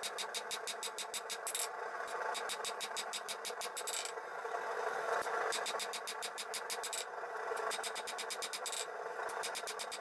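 Hand hammer striking a hot steel knife blank on an anvil while forging the blade: rapid runs of blows, each about two seconds long with short pauses between, over a steady background roar.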